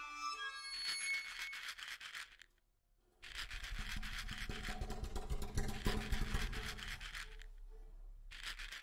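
Fingers stirring and shuffling a pile of dried runner beans on a hard surface: dense clicking and rattling as the beans knock and slide against each other. It breaks off into silence about two and a half seconds in, then resumes.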